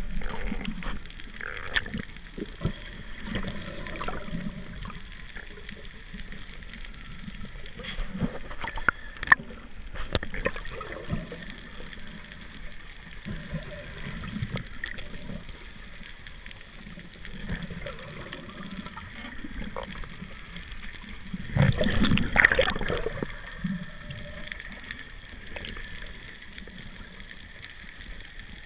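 Muffled underwater ambience picked up by a camera below the surface: irregular water movement with scattered clicks and knocks, and a louder rushing burst a little over twenty seconds in.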